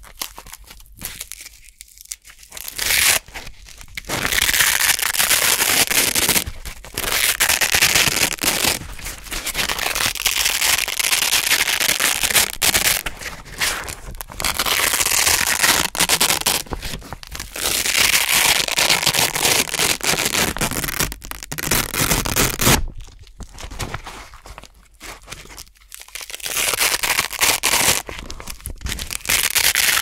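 Velcro hook-and-loop fastener being peeled apart close to the microphone: an orange hook-side circle ripping off blue loop fabric in long, crunchy crackling tears of a few seconds each. There are quieter pauses in the first few seconds and about three quarters of the way through.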